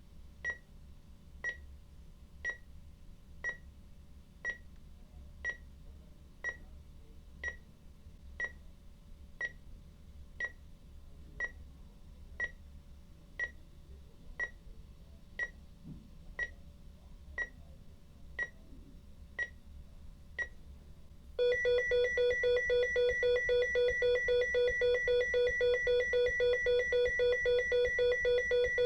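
EKG heart monitor beeping steadily about once a second, about twenty short beeps, then switching about 21 seconds in to a louder continuous flatline tone. The flatline signals that no heartbeat is detected.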